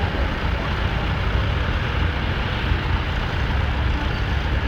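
A tractor engine running steadily close by, a constant low rumble with no breaks.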